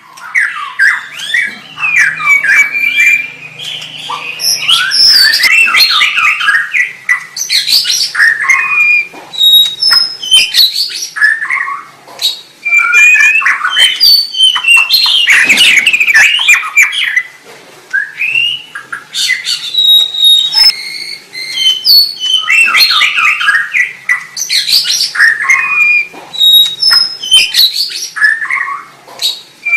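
White-rumped shama (murai batu) singing a loud, varied song of rapid whistled phrases, trills and sharp clicks, delivered in bursts with short pauses between them.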